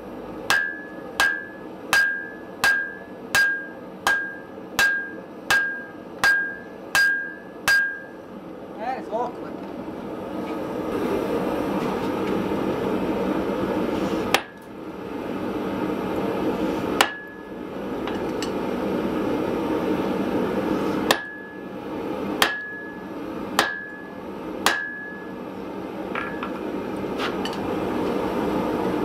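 Hand hammer forging a red-hot block of wrought iron on an anvil: a regular run of about a dozen blows, roughly one and a half a second, each with a short metallic ring. After about eight seconds a steady rushing noise comes up and the blows turn occasional and spaced out.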